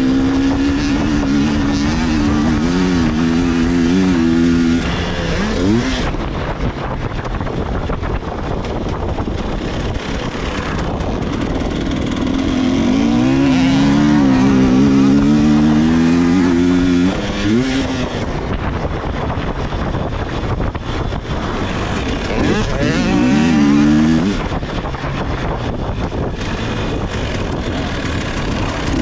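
A GasGas EC300 TPI fuel-injected 300 cc two-stroke enduro bike being ridden hard, its engine revving up and easing off again and again with quick rising revs at each burst of throttle, over steady wind rush on the microphone.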